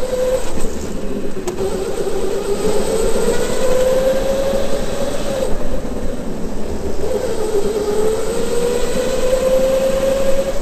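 Electric go-kart's motor whining under way, its pitch dipping as the kart slows for corners and climbing steadily as it accelerates again, twice, over a constant rush of tyre and running noise.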